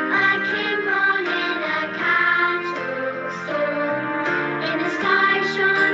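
Recorded children's song track, with children's voices singing a Christmas song over instrumental accompaniment and a woman's voice singing along.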